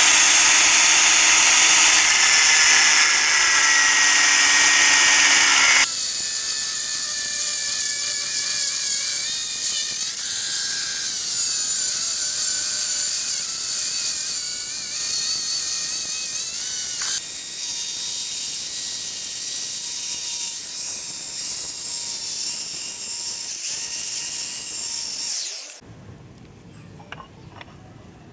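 An electric power tool running continuously, its sound changing about six seconds in, then stopping a couple of seconds before the end.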